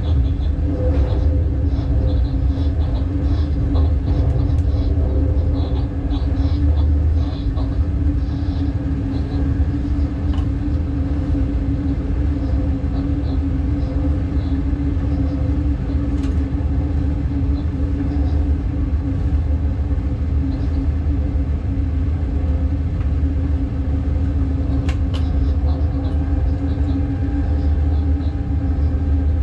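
Class 186 Bombardier TRAXX electric locomotive heard from its cab while running: a steady low rumble of wheels on rail with a constant hum over it and a few faint clicks.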